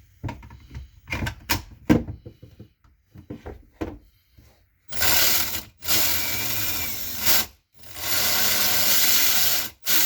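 DeWalt DCD995 hammer drill, whose gear selector is failing, is handled with a few clicks. It is then run in three bursts of a second or two each, with short pauses between them, and a brief burst near the end.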